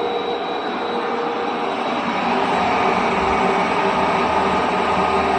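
Electric motor running on a Mitsubishi VFD (variable-frequency drive), a steady whine made of several held tones. About two seconds in it gets louder and the tones shift, as the drive's frequency is changed with the potentiometer.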